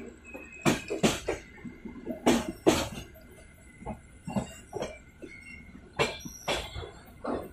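Train running on the track, its wheels knocking over the rail joints in pairs, a pair about every two seconds.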